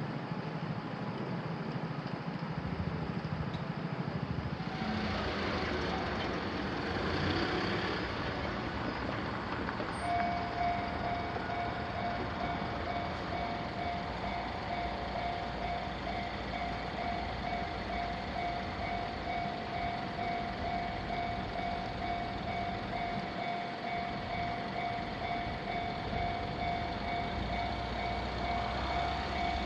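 Road traffic at a Japanese railroad crossing, with a vehicle going by, then about ten seconds in the crossing's electronic warning bell starts ringing and keeps on steadily.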